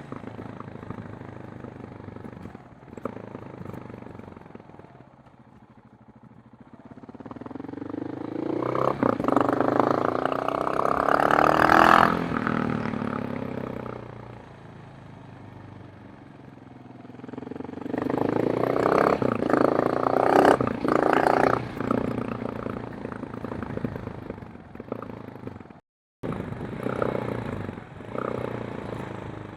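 KTM 690 Enduro R's single-cylinder engine and exhaust under riding: it accelerates hard twice, the pitch rising through the revs before dropping back, with steadier low running in between. The sound cuts out briefly near the end.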